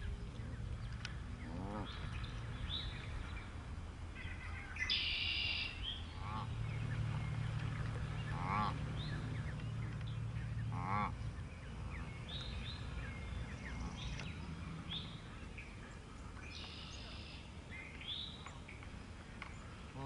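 Canada geese honking, a handful of separate calls spread out over the stretch, with short high-pitched chirps in between.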